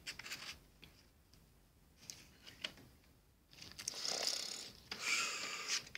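Plastic condiment packets crinkling as they are handled, in two short rustling stretches in the second half, after a near-silent pause.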